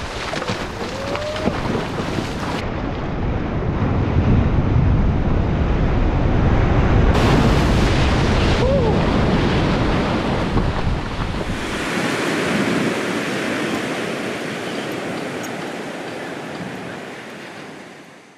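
Shore-break surf and whitewash rushing over the sand, with wind buffeting the microphone, changing abruptly a few times as clips cut, then fading out near the end.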